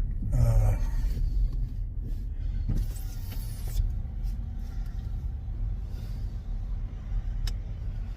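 Steady low rumble inside a car, with a few light clicks along the way.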